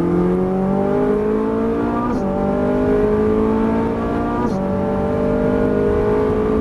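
Ferrari 458 Italia's naturally aspirated V8 accelerating hard at full throttle, its pitch climbing steadily through the gears with two quick upshifts, about two seconds in and again about four and a half seconds in, each dropping the revs before they climb again.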